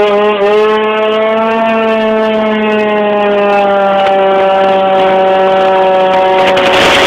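Two-stroke scooter engine of a Yamaha Jog RR, tuned with a Hebo kit, running at high revs: a buzzing whine that slowly falls in pitch. A rushing noise swells near the end.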